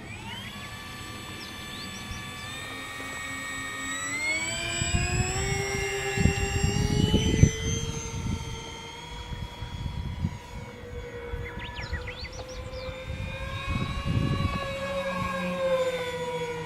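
Twin electric motors and propellers of an RC model Albatross flying boat whining, the pitch rising as the throttle opens just after the start and again about four seconds in. Rough low rumbling surges come and go twice.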